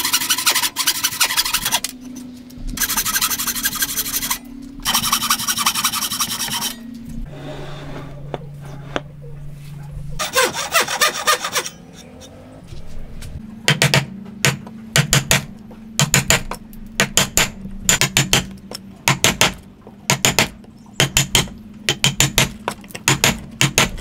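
Hand saw cutting through a hardwood post in several long strokes, then a chisel chopping a mortise in a timber beam: short sharp knocks in small groups, about one group a second, through the second half.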